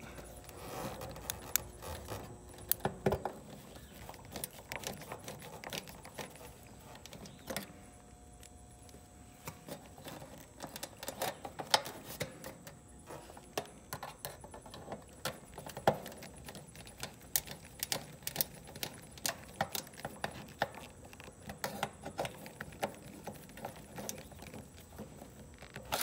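Irregular small metallic clicks and clinks of a nut driver working the screw on a sheet-metal capacitor mounting strap, as a run capacitor is fastened in an air-conditioner condenser.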